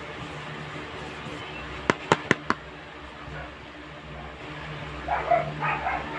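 Four sharp taps in quick succession about two seconds in, over a faint steady hum; near the end, a dog whimpering in short high yips.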